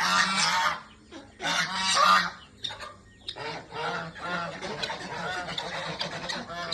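Geese honking: two loud bouts of rapid honks in the first two seconds, then a steadier chatter of many overlapping, quieter honks from about three seconds in.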